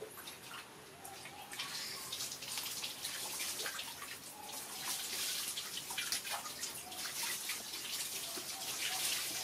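Water poured from a plastic scoop over a wet monkey, splashing and dripping into the water of a plastic tub below, heavier in a few spells.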